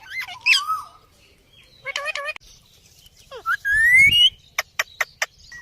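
Pet ringneck parakeet calling: short warbling, talk-like phrases, then a loud rising whistle about three and a half seconds in, followed by a quick run of sharp chirps near the end.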